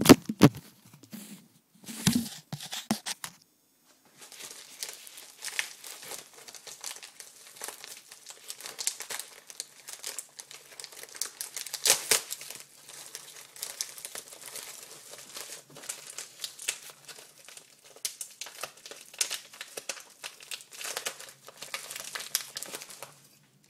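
Plastic mailing bag crinkling and rustling as it is handled and torn open. A few sharp knocks come in the first few seconds, and after a short pause the crinkling runs on without a break.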